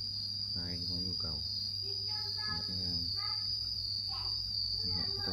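Insects trilling steadily in one continuous high-pitched drone.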